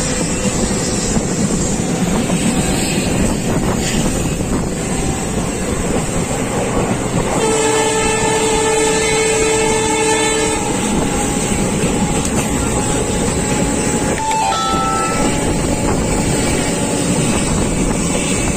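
Train running on the rails with a steady rumble, its horn sounding once for about three seconds midway.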